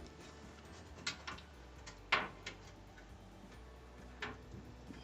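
Scattered light clicks and taps, the sharpest a little over two seconds in, as a screwdriver and hands work the clips of a washer's lid switch assembly.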